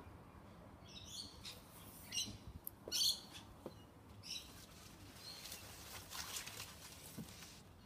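Birds chirping: a handful of short, high-pitched calls in the first half, the loudest about three seconds in.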